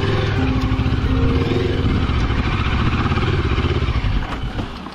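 Moto Morini X-Cape 650's parallel-twin engine running at low speed as the motorcycle climbs a rocky off-road track, quietening near the end.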